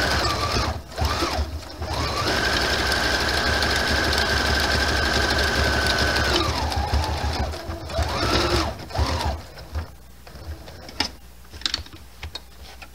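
Electric sewing machine stitching around an appliqué, its motor whining. It stops and starts twice at the beginning, runs steadily for about four seconds, then slows and stops about nine seconds in. A few light clicks follow near the end.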